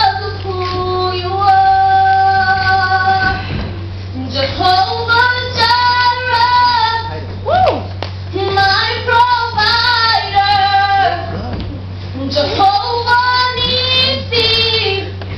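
Children's voices and a woman's voice singing a gospel worship song in long held notes, with a steady low hum underneath.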